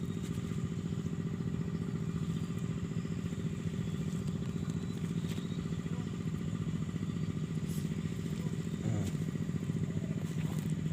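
A small engine running steadily at an even, fast chugging beat.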